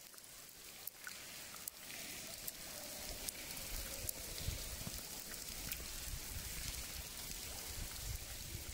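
Faint, rain-like ambient hiss with scattered ticks like drops, and a low rumble that comes up about three seconds in.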